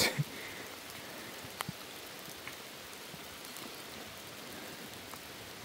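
Steady rain falling, an even hiss, with a few separate drops ticking.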